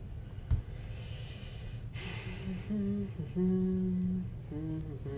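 A person humming a few short held notes over a steady low background hum, with a click about half a second in and a breathy hiss about two seconds in.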